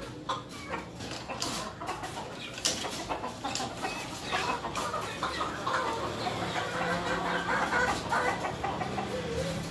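Domestic chickens clucking, several birds calling on and off, with a few sharp clicks and knocks among the calls.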